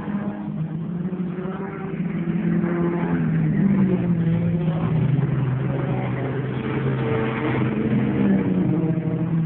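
Several race car engines running hard around a dirt oval, their pitches overlapping and rising and falling as the cars pass. The engines grow louder about three and a half seconds in.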